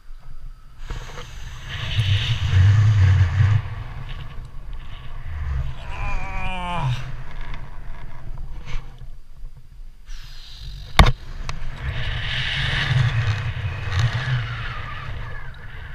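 Wind rushing over an action camera's microphone as a rope jumper swings on the rope, in two long swells. Midway a single voice gives a short rising-and-falling shout, and about eleven seconds in there is one sharp knock.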